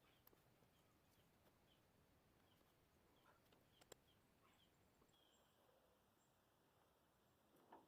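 Near silence: faint outdoor ambience with soft, repeated high chirps from a small bird and a few tiny clicks.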